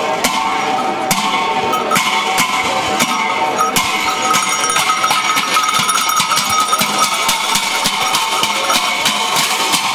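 Ritual music accompanying a masked cham dance: cymbals clashed together with drum strokes about once a second, ringing after each clash, over sustained wind-instrument tones and crowd chatter.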